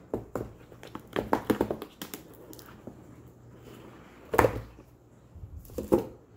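A cardboard product box being handled and opened by hand: a run of taps and light scrapes as it is turned over, then a louder rub about four and a half seconds in and a shorter one near six seconds as the lid is lifted off.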